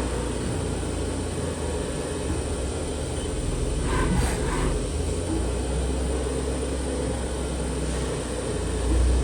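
Haas VF-3 vertical machining center running: a steady low hum and rumble of machinery, with a brief whirring about four seconds in.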